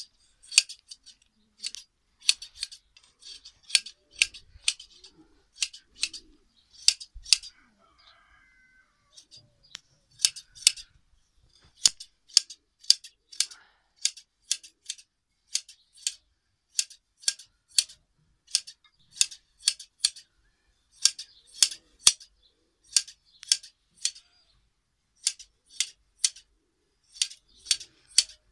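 Large hand scissors snipping through a sheep's fleece in quick, crisp cuts, mostly in pairs or threes and repeating steadily as the wool is sheared off by hand, with a short pause about eight seconds in.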